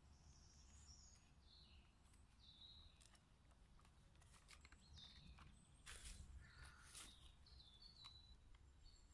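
Faint forest birdsong: short high chirps scattered throughout, with a few soft knocks and rustles about six and seven seconds in from the wooden chair being handled.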